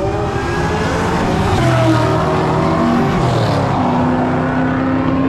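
Several car engines running as cars drive slowly past, their pitch rising and falling, with one engine holding a steady note near the end.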